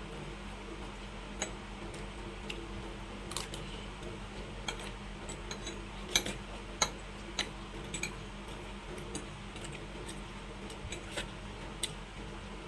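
Eating sounds from a mukbang: irregular sharp clicks and ticks of eating and handling the food, the loudest two about halfway through, over a steady low hum.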